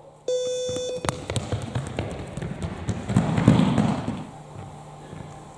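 A short electronic beep, then quick footsteps and sharp taps as two players sprint off across a sports-hall floor, loudest about three to four seconds in.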